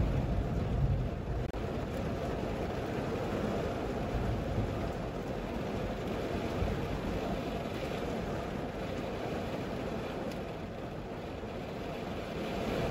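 Steady low rumble and hiss inside a stationary car's cabin in light rain, with a few faint taps.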